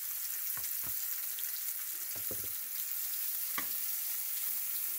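Thinly sliced ribeye steak sizzling in hot oil in a frying pan on medium-high heat, a steady high hiss. A few short taps and scrapes of a spatula and fork against the pan as the slices are pulled apart.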